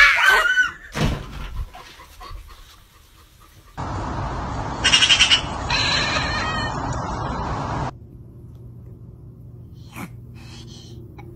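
A cat chattering in quick, rattling, magpie-like calls about five seconds in, over a steady outdoor hiss that stops about eight seconds in. A short pitched animal cry is heard right at the start.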